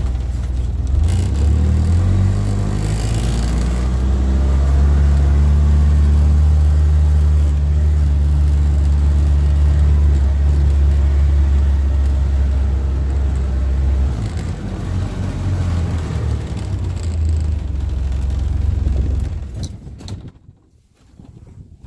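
A small vehicle's engine running as it is driven, a steady low drone that shifts in note about two-thirds of the way through and stops near the end.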